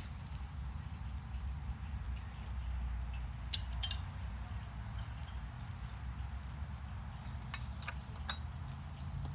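Steady low rumble of a Nelson P150 big gun sprinkler running off gas-powered water pumps, with a few sharp clicks and ticks scattered through.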